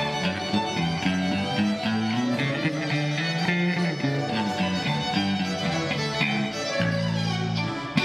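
Fiddle and piano accordion playing a traditional Northumbrian tune together, the notes moving quickly, settling into a held chord near the end.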